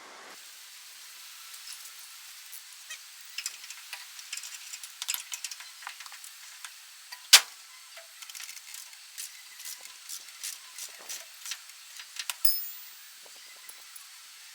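Irregular metallic clicks and taps of hand tools working the rusty bolts of a truck bed, with one sharp, loud clink about seven seconds in and a cluster of louder clicks near the end.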